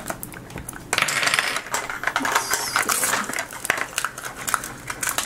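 Small hard-plastic Mini Brands miniatures and a plastic capsule ball clicking and clattering as they are handled and set down on a table, with a short burst of rustling about a second in.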